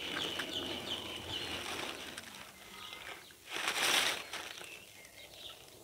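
A thin plastic bag rustling loudly for just under a second, about three and a half seconds in, as a hand reaches into it with an eggshell. Faint bird chirps can be heard in the background.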